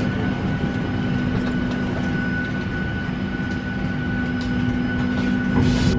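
Steady hum inside a parked Boeing 737-700's cabin: the air-conditioning and ventilation running, a low rumble with a couple of steady tones over it. A brief hiss comes near the end.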